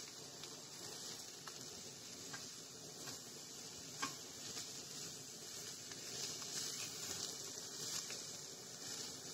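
Sliced raw mushrooms frying in a pan: a faint steady sizzle with the scraping and small clicks of a spatula stirring them, one sharper click about four seconds in.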